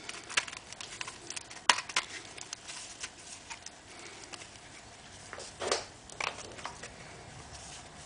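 Scattered light clicks, taps and rustles of small parts being handled on the motorcycle, the sharpest about a second and a half in.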